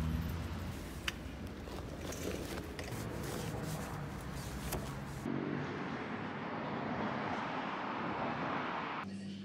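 Outdoor street ambience with road traffic: a steady rumble and noise with a few small clicks, changing abruptly about five seconds in to the sound of a vehicle passing.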